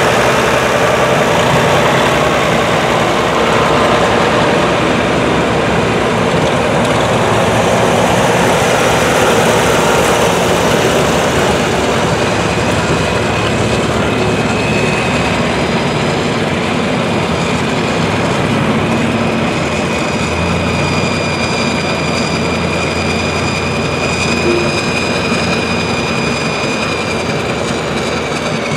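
Engines of several antique farm tractors running as the tractors drive past in a line, with a Farmall 1206 Turbo's six-cylinder diesel loud and close at the start. A steady high whine joins about halfway through.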